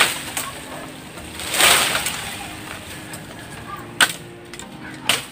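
Leaves and branches rustling and swishing as a long dry bamboo pole is dragged down through the thicket, in two bursts, followed by two sharp knocks about four and five seconds in.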